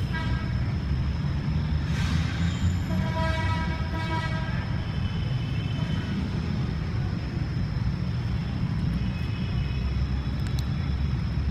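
Steady low rumble of background traffic. A few seconds in, a horn-like tone sounds for two or three seconds. Faint small clicks come near the end.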